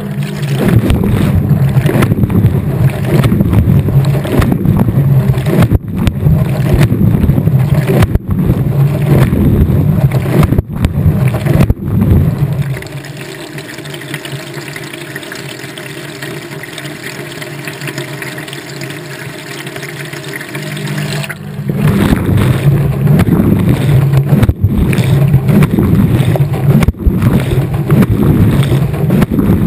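Washing machine drum tumbling a wash load, heard from inside the drum: water and wet laundry sloshing and churning right at the microphone. About halfway through the churning drops to a quieter steady hum for several seconds, then the tumbling starts again.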